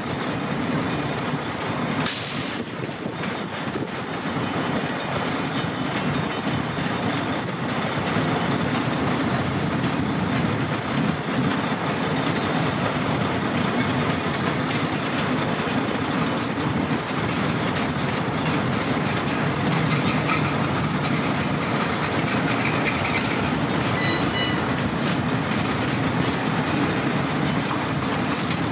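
Freight train of empty boxcars behind EMD GP40-type diesel locomotives rolling past, with a steady rumble of wheels on the rails and clicking over rail joints.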